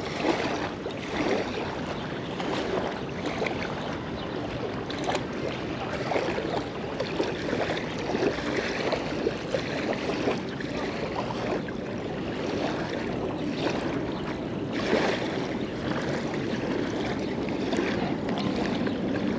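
Small waves lapping and splashing at the edge of a sandy riverbank, a steady watery wash with many small splashes.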